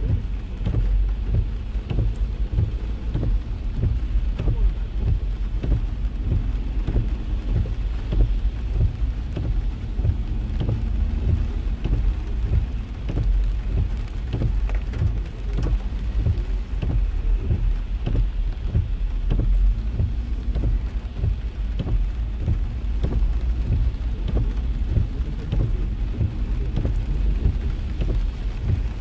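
Heavy rain hitting a car's roof and windscreen, heard from inside the cabin as a dense, continuous patter of drops over a steady low rumble.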